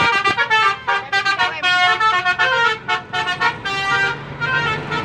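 Bus's basuri telolet horn playing a melodic tune of quickly changing notes, fading to weaker tones about four seconds in.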